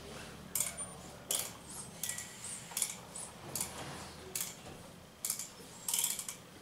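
Ratchet wrench clicking in strokes as fasteners on a Harley-Davidson Twin Cam engine's rocker box are turned: eight sharp metallic clicks, about one every three-quarters of a second.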